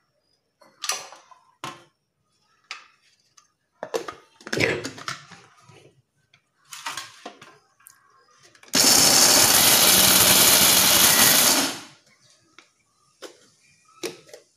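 Knocks and clatter as a steel mixer-grinder jar and its lid are handled, then the electric mixer grinder runs for about three seconds, chopping dried coconut (copra) pieces into coarse gratings, and stops.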